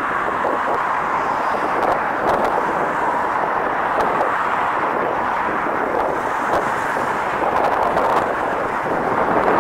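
Diesel locomotive engine working under power as it hauls a rail grinding train past, a steady loud rumble.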